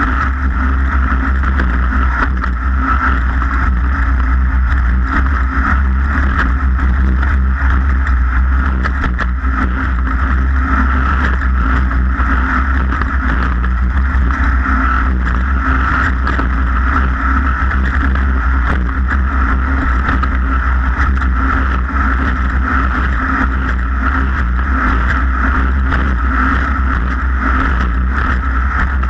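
Off-road race vehicle's engine running steadily at speed, with a constant rush of noise over it and no change in pitch.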